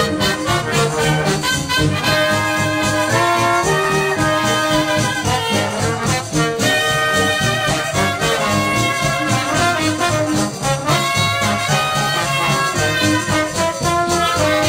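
A Dixieland jazz band of 1950 playing at full ensemble, trumpet and trombone to the fore, over a steady beat from a rhythm section of piano, banjo, bass and drums.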